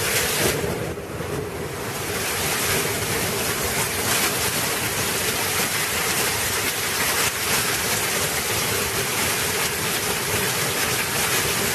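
Torrential rainstorm: very heavy rain pouring down in a steady dense roar.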